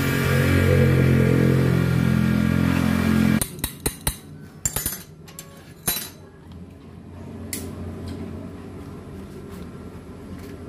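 Corded electric drill spinning a grinding wheel mounted in its chuck, a steady motor whine that cuts off suddenly about three and a half seconds in. Then small metal parts click and clink in the hands.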